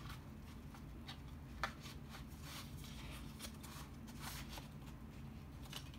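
Cardboard box-set packaging and discs being handled: faint rustling with scattered light clicks and taps, and one sharper click about a second and a half in.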